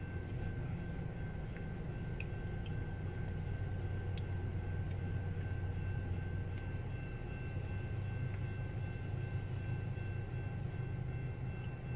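Steady low rumble of an Exo ALP-45DP dual-mode locomotive running at a level crossing, heard from inside a car, easing off somewhat about halfway through. Thin steady high tones sound over it.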